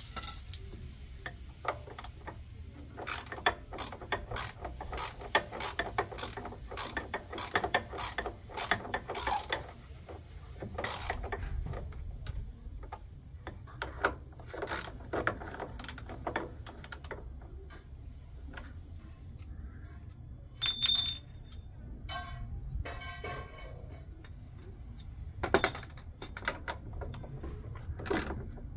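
Tools and metal parts clicking, rattling and knocking irregularly as a washing machine is taken apart, with a brief metallic ring about 21 seconds in.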